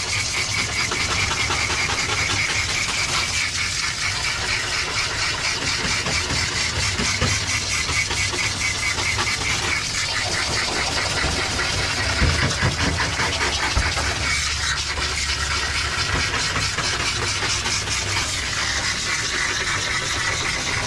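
Hose sprayer jetting water through a wet sheltie's thick coat, a steady rushing spray with a low hum under it. The water is being driven through the conditioned coat to flush out loose undercoat.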